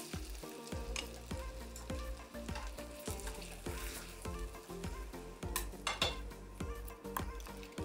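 Chicken thighs sizzling in an oiled frying pan at medium-low heat as curry-yogurt sauce is spooned over them, with a couple of sharp clicks about two-thirds through. Soft background music with a steady beat runs underneath.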